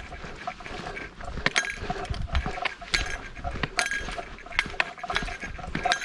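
A small metal bell jingling irregularly in step with a hiker's footsteps on a mountain trail, each jingle a short bright ring, with soft footfalls underneath.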